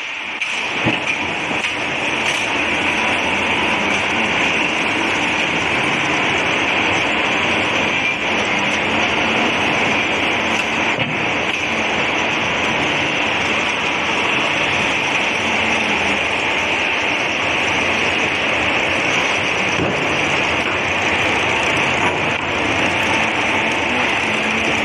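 Log debarking machine and chain log conveyor running, a steady, dense mechanical din with no pauses.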